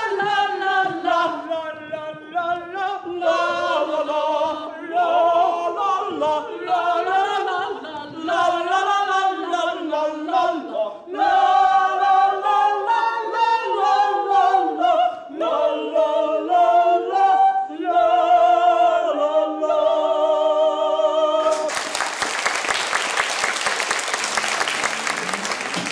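A group of voices singing unaccompanied on stage, the melody moving in short sung phrases. About 22 seconds in the singing stops and an audience breaks into applause.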